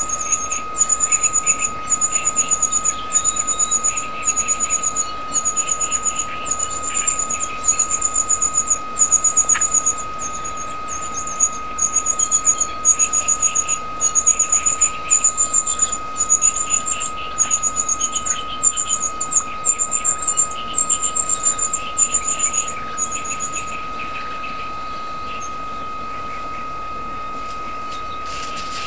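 Cuckoo chick begging for food in the nest: very high-pitched rapid calls in short bursts, one after another, which stop about 24 seconds in. A steady single high tone runs underneath throughout.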